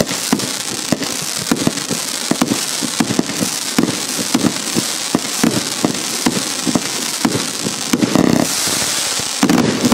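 Organised Chaos 174-shot compound firework cake by Hallmark Fireworks firing rapidly: sharp shots several times a second over continuous crackling from the bursting stars. There are two louder, denser bursts near the end.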